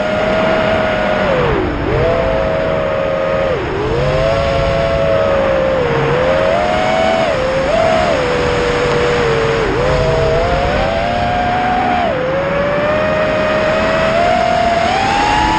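Small 3D-printed 210-size FPV racing quadcopter's brushless motors and propellers whining, heard from its onboard camera, the pitch rising and falling with throttle. The pitch dips sharply several times and climbs toward the end of the flight.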